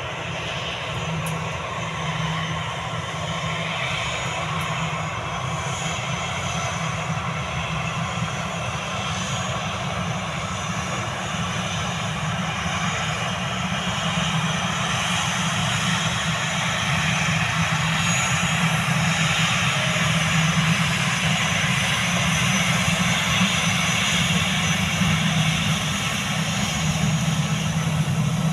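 CFM56 jet engines of an Airbus A320-214 running on the runway: a steady rumble with a thin high whine, growing gradually louder.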